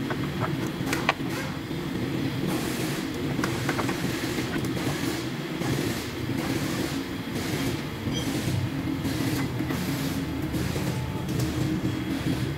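A steady low mechanical rumble runs throughout, from a running machine or engine in the workshop. Over it come a few sharp clicks about a second in, then repeated short scraping rasps as an engine valve cover is worked loose and lifted off.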